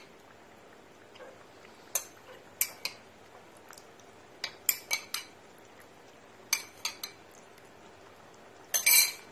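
Metal spoon clinking and tapping against a metal cooking pot: short sharp strikes in small groups of two to four, with a longer clatter near the end.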